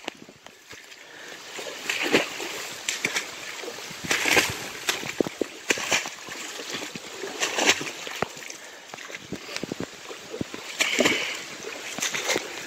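A person wading through flooded creek water, each step splashing and sloshing, at irregular intervals of a second or two.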